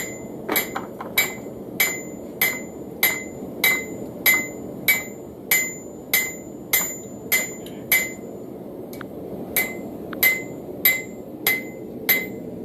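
Hand hammer striking a hot railroad-spike knife blade on a Hay Budden anvil in an even rhythm of about one and a half blows a second, each blow ringing. The blows pause briefly a little past the middle, then resume.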